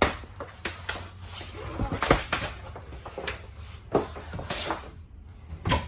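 A series of separate knocks and clunks, roughly a second apart, from things being handled in a small enclosed space, with a short rustling hiss about four and a half seconds in.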